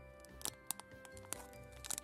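Background music, with a few short crinkles of a Black Thunder minibar's plastic wrapper as it is handled.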